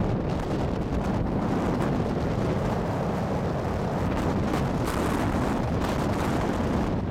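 Wind buffeting the microphone: a steady low rumbling noise with no pitched engine note.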